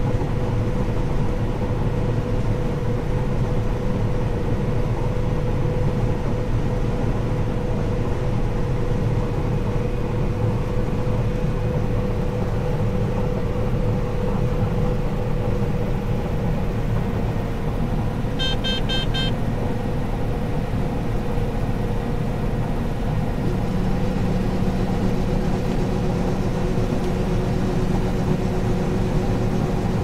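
Combine harvester running steadily while harvesting corn, heard inside the cab: a steady hum with a constant tone over it. A short run of rapid beeps comes about two-thirds of the way through. Soon after, a new lower hum joins as the unloading auger starts emptying corn into the grain cart.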